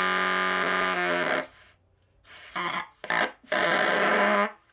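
Pocket trumpet fitted with a bassoon reed, blown in steady held notes: one long note, a short pause, two short notes, then another long note that steps down slightly in pitch near the end.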